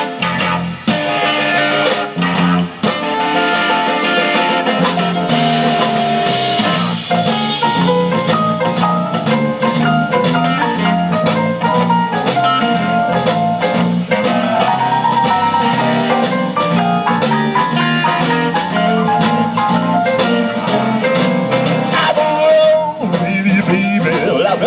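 Live blues band playing an instrumental passage with no singing: electric guitar, electric bass, keyboard and drum kit together.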